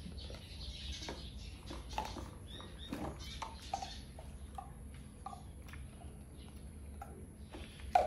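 A baby monkey squeaking: short, high calls repeated several times, over light clicks and handling knocks, with one louder knock near the end.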